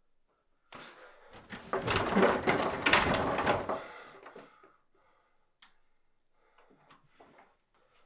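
A wooden closet door rattling and banging in its frame for about three seconds, building to its loudest in the middle and then dying away, followed by a few faint clicks.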